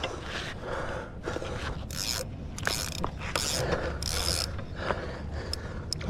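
Fishing reel ratcheting and whirring while a hooked jack crevalle is fought, with four short hissing bursts between about two and four and a half seconds in.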